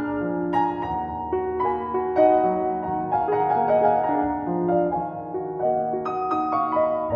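Piano music: a melody of held notes, each lasting about half a second to a second, over lower sustained notes.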